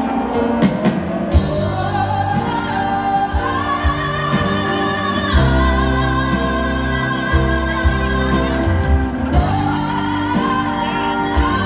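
Two female vocalists singing long held notes together with vibrato over a live rock band's sustained accompaniment, heard from the audience of an arena concert.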